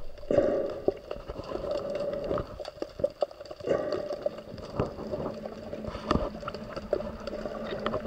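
Underwater sound close to a submerged algae-covered pillar: water gurgling, with many irregular small clicks and pops.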